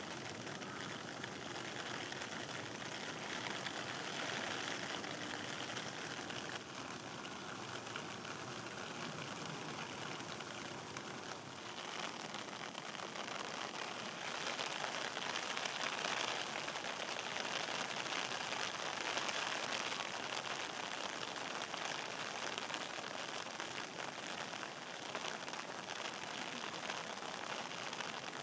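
Steady rain falling on grass and wet concrete, an even hiss that grows slightly louder midway.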